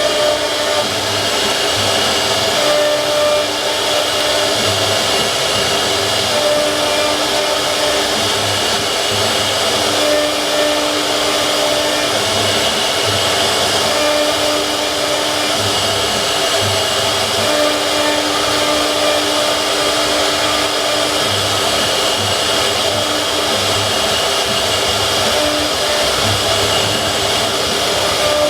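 Wood CNC router spindle running steadily while carving, with faint tones that come and go as the machine moves between cuts.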